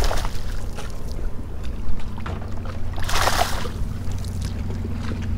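Outboard motor idling with a steady low hum, under wind on the microphone, with a brief hissing rush about three seconds in.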